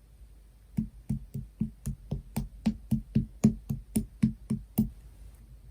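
A quick run of about sixteen light taps, three to four a second, starting about a second in and stopping near the end.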